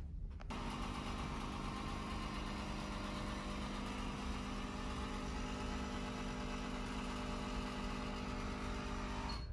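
A steady machine hum with a low drone, like a motor running without change. It starts suddenly about half a second in and cuts off just as suddenly near the end.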